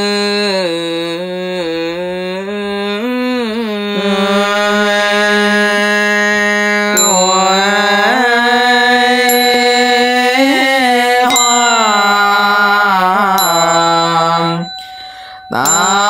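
Chinese Buddhist liturgical chanting: a voice sings slow, drawn-out melodic lines with long held notes, breaking off briefly near the end. A small bell is struck every couple of seconds in the second half.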